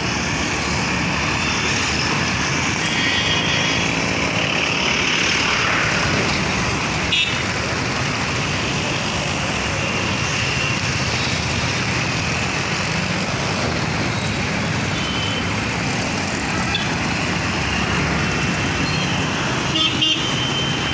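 Steady city road traffic: cars and motorbikes passing, with a few short horn toots.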